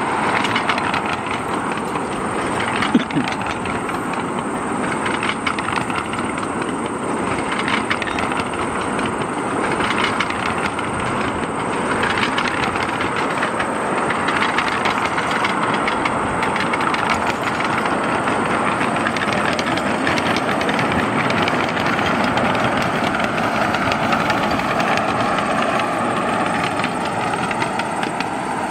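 Ride-on miniature railway train rolling past, a long string of small cars with steel wheels clattering steadily over the track.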